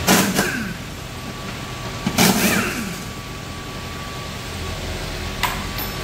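Pneumatic impact wrench run in two short bursts, each about 0.7 s and falling in pitch as it stops, then a brief blip near the end, working the upper mount of a Volkswagen Scirocco's rear shock absorber.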